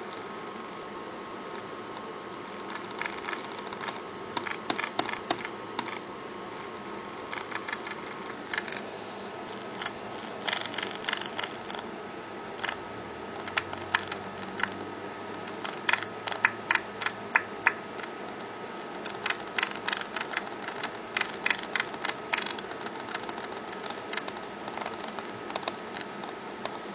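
Clusters of quick, irregular clicks from computer keyboard keys being pressed as the volume is stepped up and down, over a steady hiss with a faint hum from the computer's speakers.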